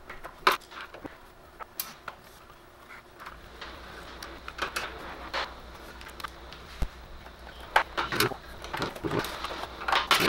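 Handling of a Samsung ML-2525W laser printer's plastic case while its screws are backed out with a Pozidriv screwdriver: scattered small clicks and knocks, busiest near the end. A faint low hum sets in about three seconds in.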